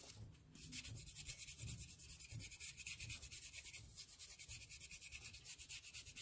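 Kitchen toothbrush scrubbing wet cinnamon bark, quick back-and-forth strokes several times a second, with a short break near the start. Faint.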